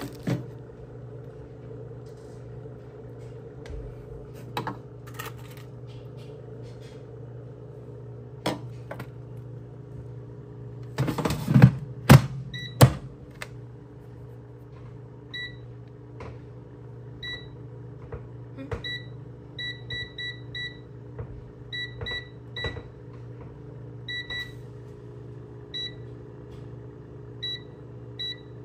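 Gourmia air fryer's touch control panel beeping at button presses: a string of short, high beeps at irregular intervals over the second half. A few loud knocks and clatters come just before the beeps begin, with a steady low hum underneath.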